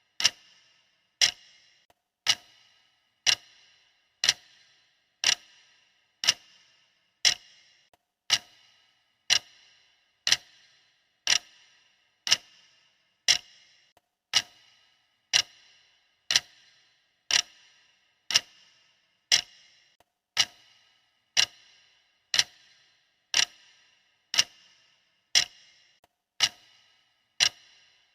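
Clock ticking, one sharp tick every second at a steady rate, each with a brief ring after it.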